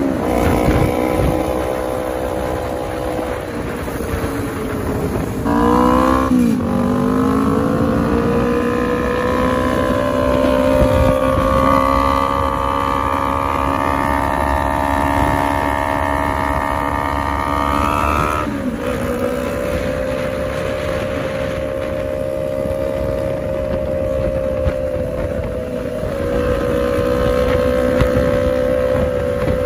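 Custom Kawasaki Ninja 250 cafe racer's engine and exhaust running on the road. The note rises and falls sharply about six seconds in, holds steady, then drops at about eighteen seconds and runs on steadily.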